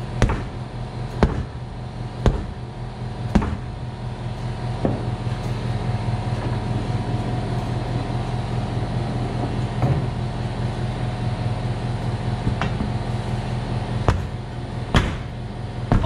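Sharp metal knocks and clanks from steel tools and a bead-breaker clamp worked against a tractor wheel rim, four about a second apart at the start and a few more near the end, over a steady mechanical hum.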